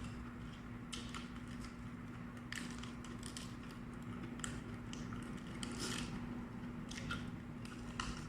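Close-up chewing and crunching of raw vegetables, irregular crisp crunches every second or so, over a steady low hum.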